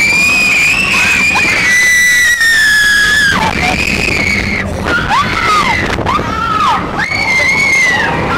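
Roller coaster riders screaming over the rumble of the coaster train on its track. The first scream is held for about three seconds, and several shorter screams rise and fall after it.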